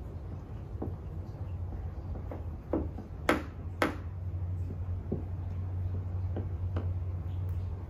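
Light clicks and ticks from a squeegee and fingers working wet paint protection film around a car headlight's edge, with two sharp louder clicks about half a second apart midway, over a steady low hum.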